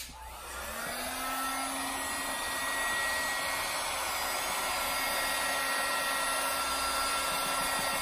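Bosch hot air gun switched on, its fan spinning up over about a second and then running steadily: a rush of air with a faint whine, blowing hot air onto heat-shrink tubing over a battery cable terminal.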